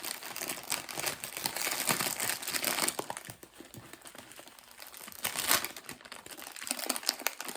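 Plastic-covered adhesive craft canvas crinkling as it is handled. The crinkling is busiest in the first three seconds, eases off, then comes in again in a short burst past the middle.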